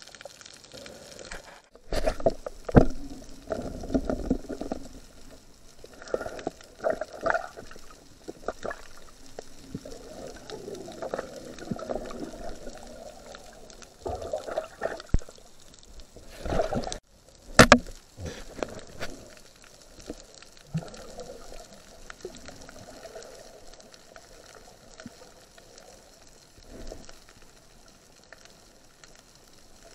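Muffled underwater sound of water swirling and gurgling against the camera, with irregular bumps and a few sharp knocks, the loudest about 3 s and 17–18 s in, growing quieter over the last third.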